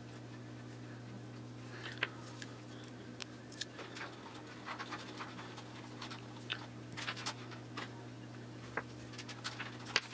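Faint handling noises of fingers smearing anti-seize paste onto the threads of small metal hot-end parts: scattered light clicks and rubbing, over a steady low hum.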